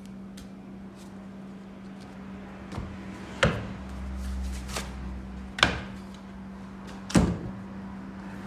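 Three loud, sharp knocks about two seconds apart, each ringing briefly, over a steady low hum, with a few faint ticks between them.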